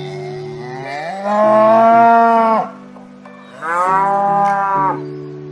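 A cow mooing twice, a long call and then a slightly shorter one, over steady background music.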